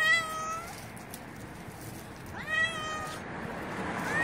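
A white-and-orange Korean shorthair cat meowing: one meow right at the start and a second about two and a half seconds in, with a third just beginning at the end.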